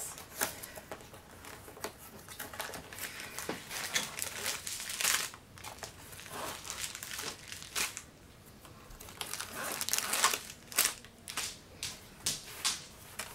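Plastic packaging crinkling and rustling in irregular bursts as it is handled, with a quieter lull a little past the middle.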